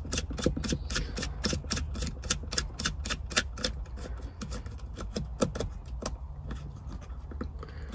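Quick run of small plastic clicks as the threaded retaining collar of a twin accessory-socket housing is screwed up by hand, several a second, thinning out near the end.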